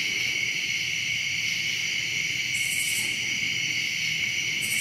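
Night-time insect chorus: crickets or katydids trilling steadily in high, unbroken tones, with a brief higher buzz twice.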